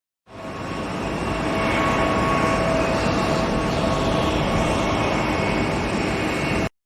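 Steady rumbling noise of a passing train, with faint steady tones above it. It fades in at the start and cuts off abruptly near the end.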